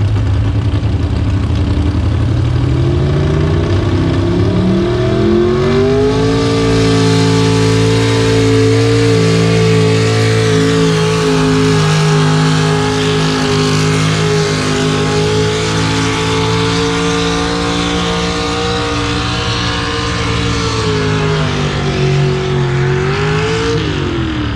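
A pulling truck's engine revs up over the first few seconds and is held at high revs under load for most of the pull, then drops off near the end as the throttle is let off.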